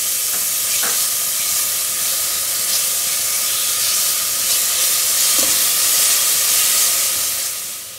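Minced meat frying in hot oil with onion and tomato in a pressure cooker, a loud, steady sizzling hiss that fades near the end.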